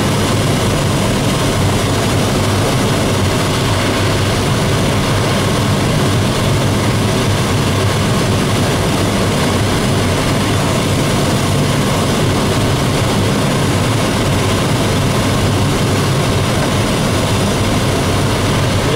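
Steady rush of air around the ASK 21 glider's canopy on aerotow, heard from inside the cockpit, with the low drone of the tow plane's propeller engine ahead. The sound holds even throughout, without any change in pitch or loudness.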